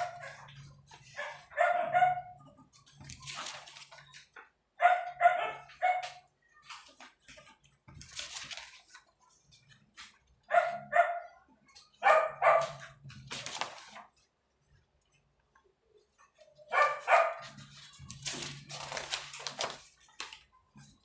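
A dog barking in short runs of two or three barks, several times over. Between the runs, sheets of paper rustle as pages are turned.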